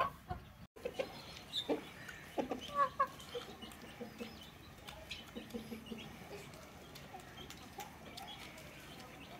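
Chickens clucking in short calls, several in the first three seconds and fainter ones after.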